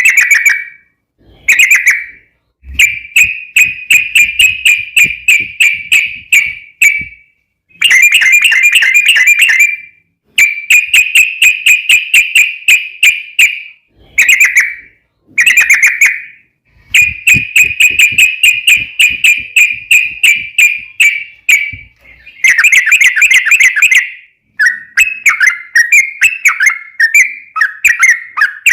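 Yellow-vented bulbul (trucukan) singing a long rapid trill: loud, bubbly chattering notes in phrases of a few seconds with short pauses between them. Near the end the notes drop lower and become more broken and varied.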